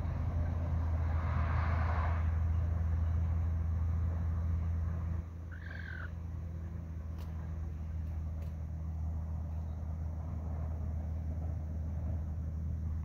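A steady low hum, louder for the first five seconds and then dropping in level, with one short bird call about six seconds in and a couple of faint ticks after it.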